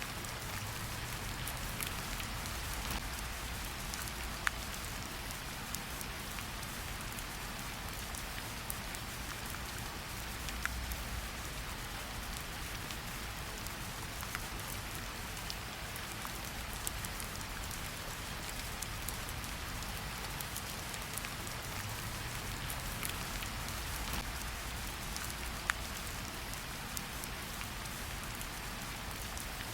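Steady rain falling in a forest, an even patter with individual drops ticking sharply now and then, over a low rumble.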